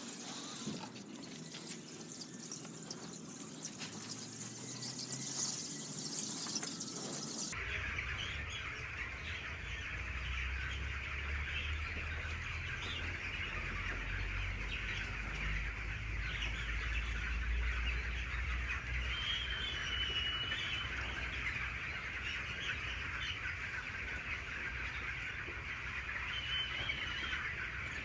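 Young broiler chickens (16 days old) peeping together in a dense, continuous chorus over a low rumble. The chorus starts abruptly about seven seconds in, replacing a different, lower sound.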